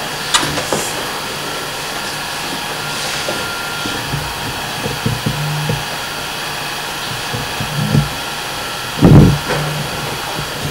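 8mm cine projector running, a steady whirring of motor and fan, with a few faint clicks and one dull thump about nine seconds in.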